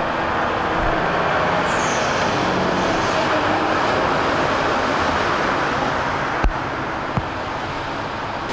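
Traffic on a flooded freeway: a semi truck and cars driving slowly through deep standing water in heavy rain, a steady rush of spray and tyre wash over a low engine hum. Two sharp clicks come near the end.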